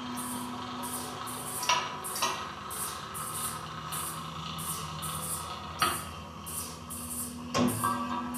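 Rhythmic hissing pulses, a little over two a second, over a steady low hum, with a few sharp clicks.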